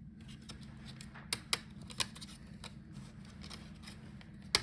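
Scattered sharp clicks and taps of hand tools and small parts on a laptop's internal plastic bracket and chassis, a few about a second and a half in and the loudest one near the end.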